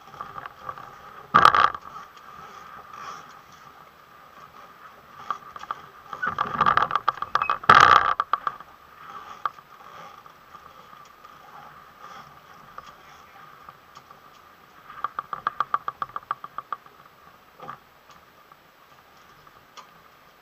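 Small catamaran's rigging and hull being handled while it is rigged: a sharp knock about one and a half seconds in, a loud clattering spell around six to eight seconds in, then a fast run of clicks around fifteen to seventeen seconds in, over a faint steady hum.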